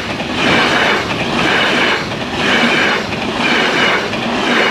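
Passenger coaches of an intercity train passing close at speed, their wheels clattering on the track in a regular beat of about one swell a second.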